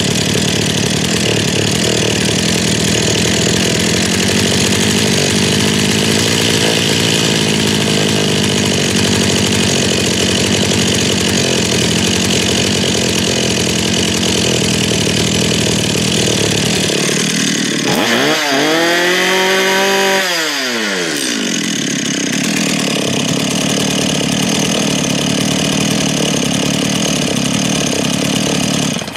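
Two-stroke chainsaw engine idling while its carburettor's low idle-speed screw is turned up to stop it stalling after starting. About two-thirds of the way through it revs up once and falls back to idle, and the running stops abruptly at the very end.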